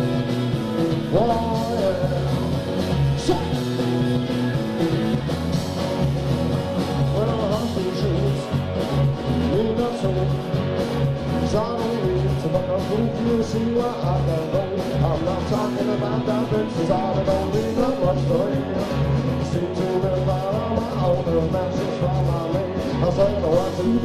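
Live band playing a rock song, with drums keeping a steady beat under a bass line, guitar and singing.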